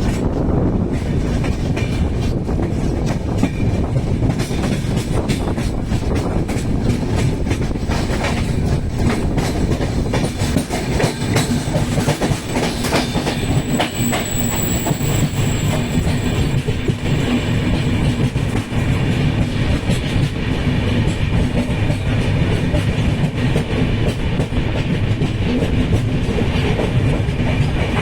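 Train running on the rails: a steady, loud rumble with wheels clattering over the track. A thin, high squeal comes in briefly about halfway through.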